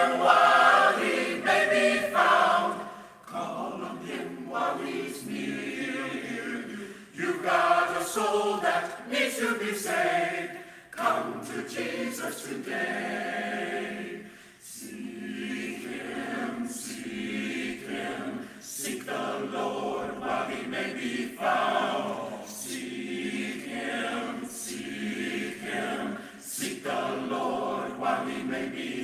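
A choir singing a cappella, sustained sung phrases with brief dips between them.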